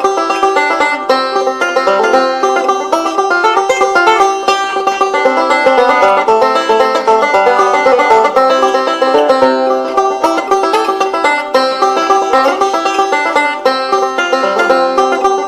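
Bluegrass banjo music: rapid plucked banjo rolls over a steady beat.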